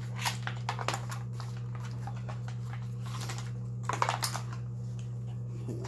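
Metal snap hooks and carabiners on a climbing saddle clicking and clinking as a chainsaw is handled against them, in a few quick clicks near the start and another cluster about four seconds in. A steady low hum runs underneath.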